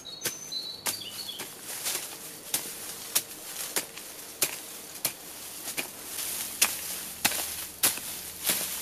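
A short-handled hoe chopping into leaf litter and soil, breaking ground for a garden bed: a steady run of dull strikes about every two-thirds of a second. A few brief bird chirps come in the first second or so.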